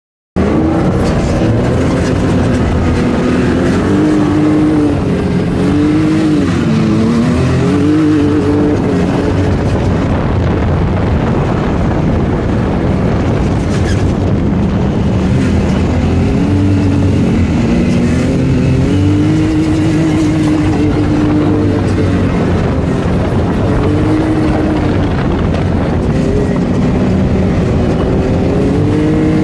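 Sand rail engine running loud and hard, its pitch rising and falling in slow waves as the throttle is worked over the dunes.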